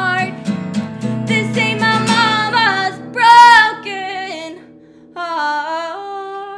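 A woman singing a country song to her own guitar strumming, drawing out the final notes. The loudest is a high held note a little past halfway. The strumming fades out about five seconds in, leaving the voice nearly alone.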